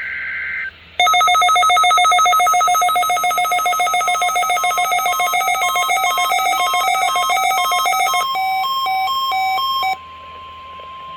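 Electronic alert tones from a NOAA Weather Radio weekly test. The end of a rasping data burst comes first, then a loud, rapidly warbling alarm of several alternating tones that turns into a slower two-note beep after about seven seconds. It cuts out about ten seconds in, leaving a fainter single steady tone.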